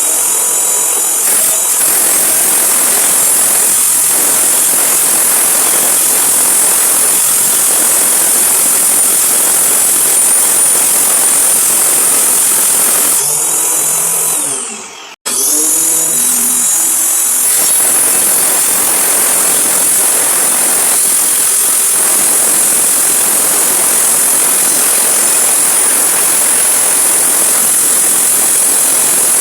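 High-speed electric power-tool motor running with a loud, steady high-pitched whir. About 13 seconds in it winds down with falling pitch and stops, then starts again at once and keeps running.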